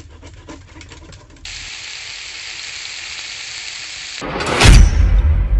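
Food frying in hot oil, a steady sizzle that starts abruptly about a second and a half in. Near the end it gives way to a loud rising whoosh with a deep rumble.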